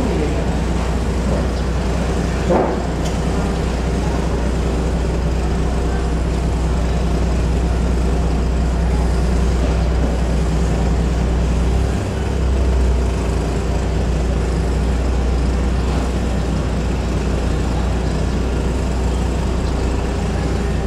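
Boat engines running with a steady, loud low drone and constant hum, the low hum briefly changing about twelve seconds in.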